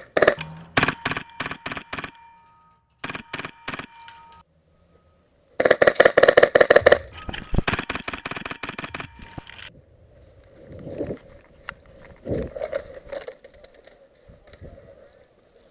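Airsoft guns firing in rapid bursts of clicks and cracks. The longest and densest burst comes in the middle, followed by fainter, scattered sounds.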